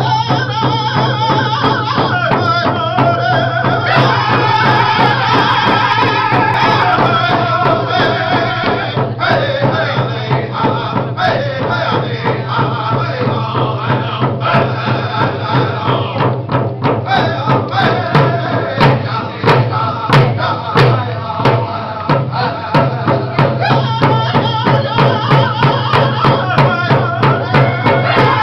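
Powwow drum song: a group of male voices singing in chant over a steady drumbeat, the music for a Fancy Shawl dance.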